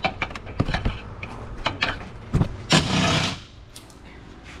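Handheld air tool running in a short burst, just under a second, as it works a bumper screw loose. Before it come a series of light clicks and knocks from handling the tool and fasteners.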